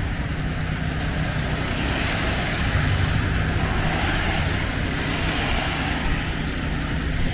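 City street traffic in a snowstorm: a vehicle passing, its hiss swelling through the middle and fading, over a steady low traffic rumble.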